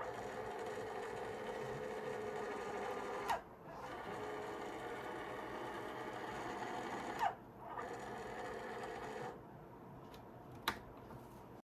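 Small electric motor and gear train of a toy gyro stage running with a steady whir. It stops and starts again twice, each time with a click and a short rising whine, then runs more quietly until a sharp click near the end, when the sound cuts off.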